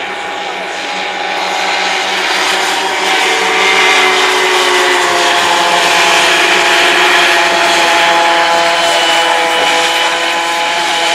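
Two-stroke engines of Easykart 50 racing karts running at high revs as several karts go through the corners. Their whining pitches rise and fall as they ease off and accelerate, and the sound grows louder over the first few seconds as the karts come closer.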